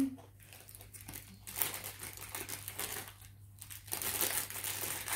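Plastic wrapper around a spice bun crinkling and crackling in irregular bursts as it is pulled open by hand, with a brief lull a little past the middle.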